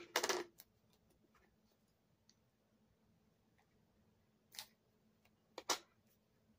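A blush compact and its packaging being handled and opened: a sharp click, a short scrape, then a few faint scattered clicks and two brief rustles near the end.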